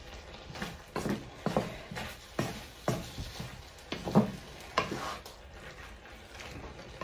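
Wooden spatula stirring a thick, creamy chicken and pepper mixture in a non-stick frying pan: irregular scrapes and soft knocks against the pan, about six louder strokes in the first five seconds.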